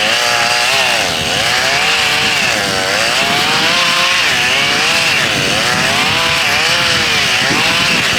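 Chainsaw cutting into a tree trunk, its engine pitch repeatedly dropping and climbing back as the chain bites and frees during a felling cut.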